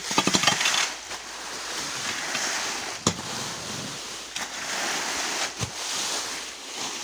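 Metal garden rake dragging through fallen walnut leaves, a rustling that swells with each sweeping stroke, with a few short taps of the tines on the ground.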